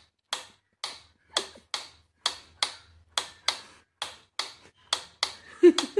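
Mechanical pendulum metronome ticking steadily, about two sharp ticks a second. Just before the end a louder, pitched sound cuts in over the ticking.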